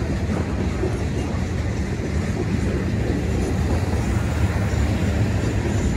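Freight cars of a long mixed freight train rolling past, a steady low rumble of steel wheels on the rails.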